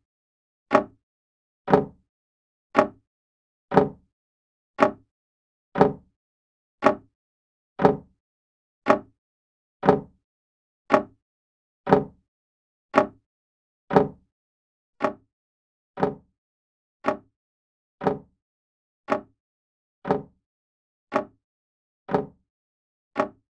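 Old grandfather clock ticking, its escapement giving an even tick-tock of about one beat a second.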